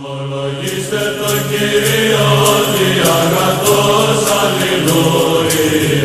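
Intro music of chanting voices over a steady low drone, fading in over the first second.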